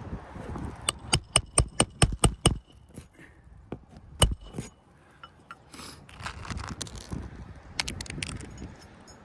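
Hammer driving a roofing nail into an asphalt shingle: a quick run of about eight sharp metallic strikes, then one more hard strike a moment later, followed by lighter clicks and scraping.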